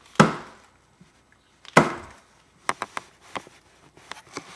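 Two hard slaps of a hand smashing down on a sealed GoGurt yogurt tube against a hard surface, about a second and a half apart; the tube does not burst. Several lighter clicks and taps follow.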